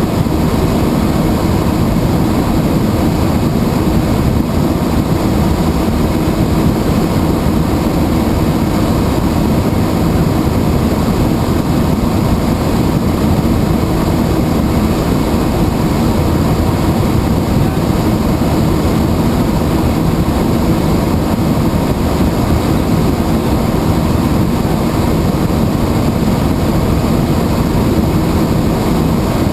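Helicopter in flight: loud, steady engine and rotor noise with no letup.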